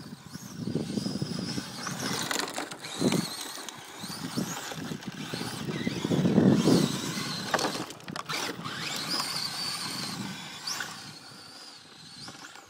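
Castle 2650 kV brushless motor of a Kyosho DRX RC rally car whining up and down in pitch as the throttle is worked, over tyres scrabbling on loose dirt and gravel. The scrabbling is loudest about six seconds in as the car slides sideways, with a few sharp knocks a little later.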